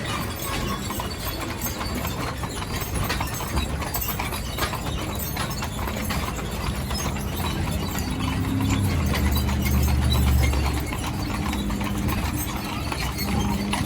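Horses' hooves clip-clopping as they pull a stagecoach along, over a steady rattling noise. A low hum swells about eight seconds in and fades near eleven.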